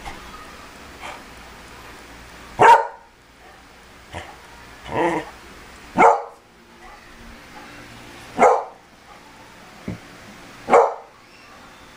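A beagle barking: five loud, short barks spaced about two seconds apart, with a few softer barks in between.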